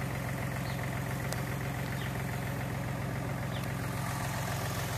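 An engine idling steadily with an even, unchanging low hum.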